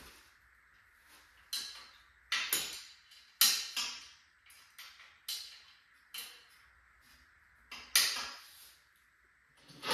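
Metal parts and tools clinking and clanking as they are handled and set down while the lift is taken apart: about a dozen sharp, irregular clinks with short ringing, and a heavier knock near the end.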